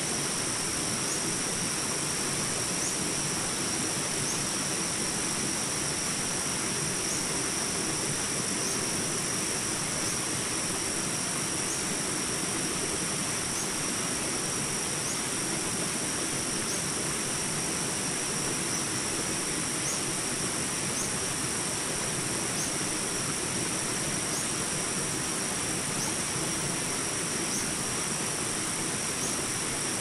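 Steady rush of a shallow stream's rapids running over rocks. Over it is a high, steady ringing with a short, faint chirp repeating about once a second.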